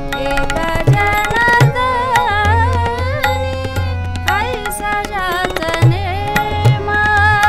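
Tabla playing a steady rhythm, the deep bass drum ringing and bending in pitch, under harmonium and a woman singing a Marathi devotional abhang.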